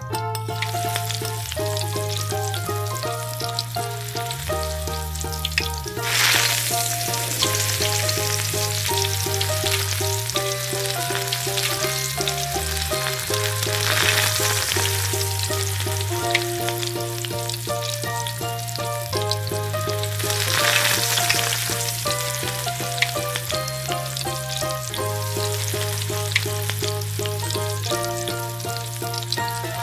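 Hot oil sizzling in a miniature pan as minced garlic and then sliced onion go in and are stirred; the sizzle swells sharply three times as food hits the oil. Background music with a bass line and melody plays throughout.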